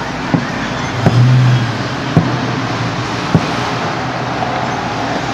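Fireworks going off at a distance: four sharp bangs about a second apart over a steady background of outdoor noise. A brief low hum rises just after the second bang.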